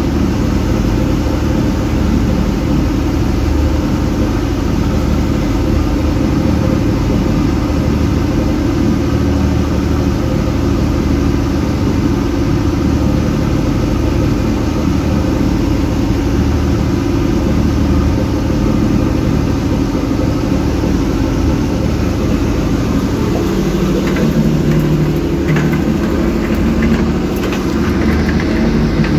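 Small fishing boat's engine running steadily under way through choppy water; the engine note changes about 23 seconds in.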